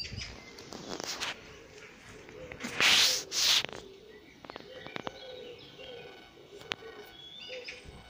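Birds chirping, with a pigeon cooing low and wavering in the second half. About three seconds in come two loud rushing hisses, the loudest sound.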